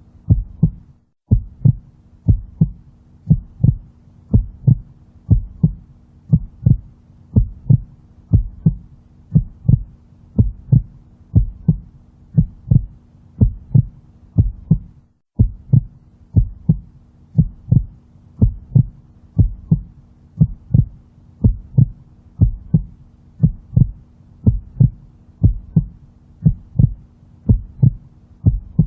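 Heartbeat sound: a steady rhythm of low paired thumps (lub-dub) over a faint low hum. The sound drops out briefly about a second in and again about halfway through.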